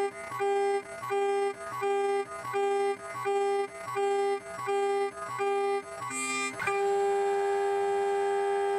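CNC spindle and small end mill facing an aluminium block, giving a high singing tone of one steady pitch with overtones. The tone comes in regular spurts about every three-quarters of a second, one per pass, with short gaps between them, then runs on without a break a little past two-thirds of the way in.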